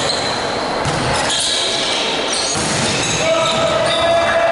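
Echoing gym sounds of a volleyball rally: a few ball hits, with short sneaker squeaks on the court floor and players' voices.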